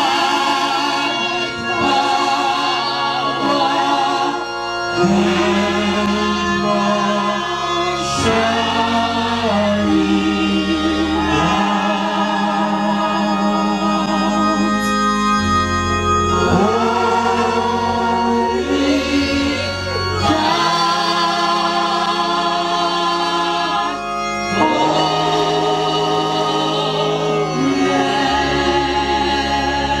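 A man singing a gospel hymn into a microphone through the church PA, with the choir singing along over held organ chords and bass notes that change every few seconds.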